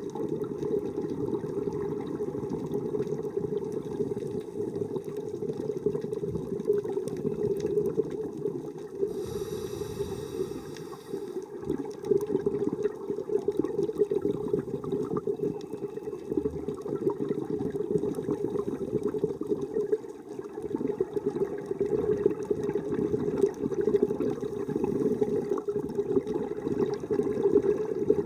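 Muffled rushing and bubbling of water heard underwater, swelling and easing slowly, with a brief hiss about ten seconds in.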